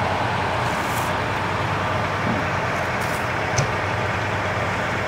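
Diesel engines of parked fire engines idling: a steady, even low rumble with no break.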